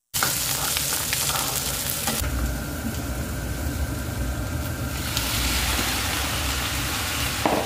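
Hot oil sizzling in a kadai as pieces of raw pork are tipped in from a bowl, a steady frying hiss over a low rumble. A brief clatter near the end.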